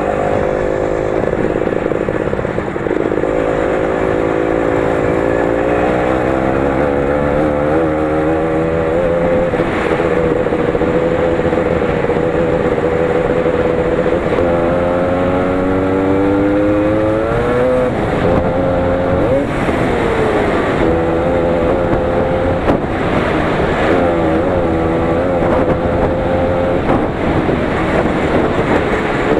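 The 20 hp engine of a Lider 3.221 running continuously while being driven off-road, its pitch rising and falling with the throttle. About halfway through, one long climb in pitch drops off sharply, followed by several shorter rises and dips.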